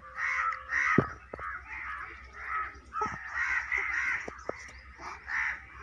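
Crows cawing over and over, a run of short harsh calls about two a second. A few sharp knocks fall among them, the loudest about a second in.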